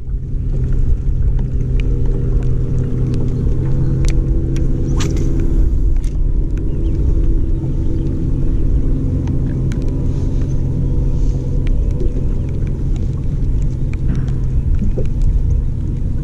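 Bass boat's bow-mounted electric trolling motor running, a steady low hum with rumble underneath, and a few faint clicks about four and five seconds in.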